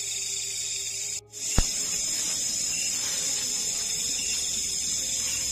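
Steady high-pitched chorus of night insects, broken by a brief dropout a little over a second in and a sharp click just after.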